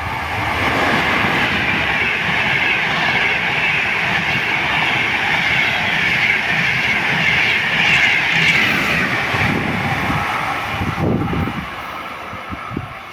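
Train passing, its wheels running on the rails with a steady rushing noise that eases off near the end.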